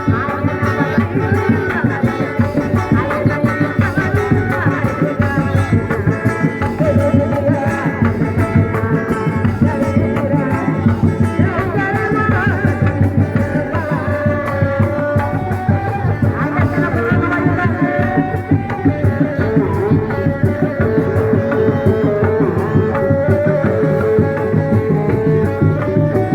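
Live kuda lumping accompaniment: rapid, steady hand-drum strokes, typical of Sundanese kendang, with a wavering melody line above them.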